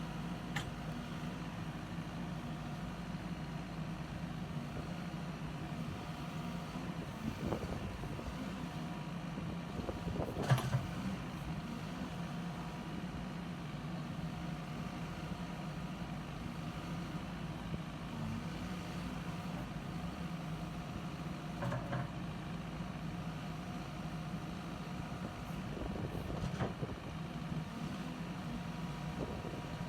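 CAT 416F backhoe loader's diesel engine idling steadily, with a few short knocks, the loudest about ten seconds in.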